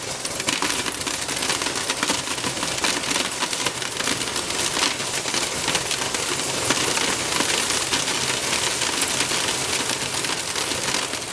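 Small shredded metal scrap pieces pouring off a color sorter's stainless steel chute into a plastic crate: a dense, continuous rattle of tiny metallic clicks. The running sorter adds a steady low hum underneath.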